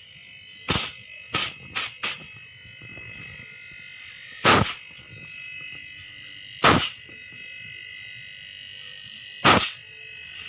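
Air compressor motor running again after being freed from a jam, with a steady whine, broken by short sharp noisy bursts: four in quick succession in the first two seconds, then three more spaced two to three seconds apart.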